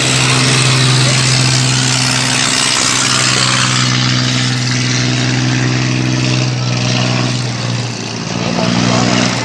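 An engine running steadily at a constant pitch, close by, with a brief dip in level about eight seconds in.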